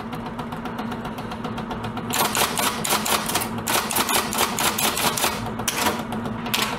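Typewriter keys clacking in a rapid run, starting about two seconds in, over a steady low hum.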